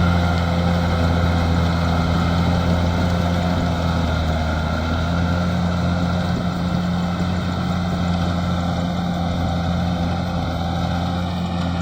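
Rice combine harvester's engine running steadily under load, a constant low hum with no change in speed.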